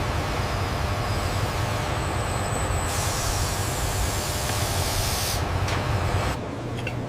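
Steady low mechanical rumble with a loud hiss from about three seconds in to past five seconds, like air or steam being released; the rumble drops off near the end.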